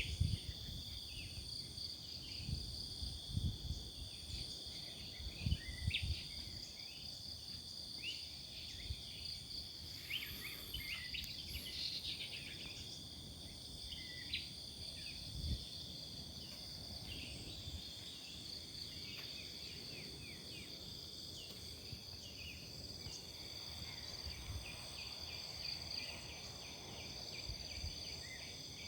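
Steady high-pitched insect chorus of crickets or cicadas, with short bird chirps scattered through it and a brief flurry of calls about ten seconds in. Low rumbling bumps come and go, mostly in the first half.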